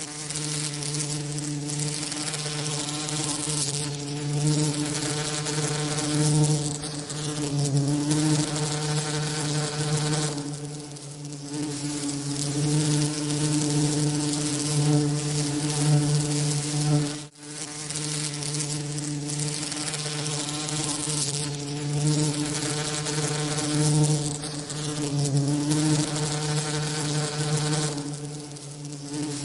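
Continuous buzzing of bee wingbeats, made as a tinnitus masking sound: a low buzzing hum with a hiss reaching high up. It swells and dips every few seconds and breaks off for an instant about 17 seconds in.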